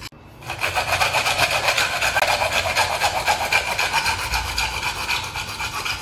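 Hand-held hacksaw blade sawing through a PVC water pipe in fast, steady rasping strokes, starting about half a second in.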